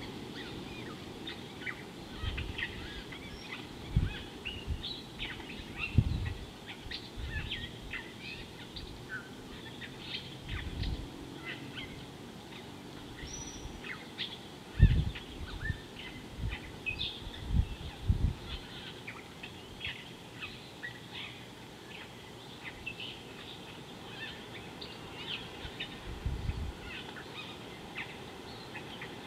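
Many small birds chirping and calling in a busy chorus of short, high notes. Brief low rumbles break in now and then, the loudest about halfway through.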